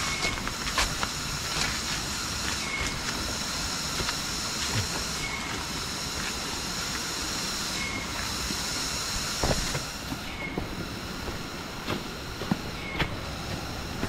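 Rushing water of a forest stream and waterfall, a steady hiss, with a high steady drone over it and a short faint chirp that repeats about every two and a half seconds. A few light knocks sound now and then.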